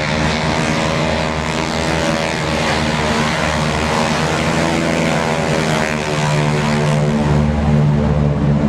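Propeller-driven piston-engine airplane flying by, a steady, loud, many-toned engine drone whose pitch bends slightly about halfway through.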